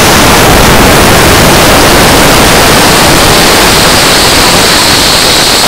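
Mass release of jet balloons by a stadium crowd: a loud, dense hiss of air rushing out of thousands of balloons at once, with a high whistle running through it.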